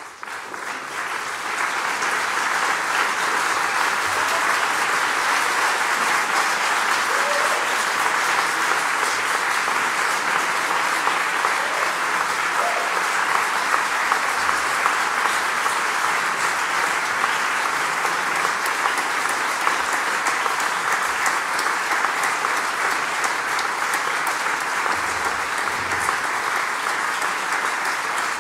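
Audience applause breaking out after a hush, building within a couple of seconds and then holding steady.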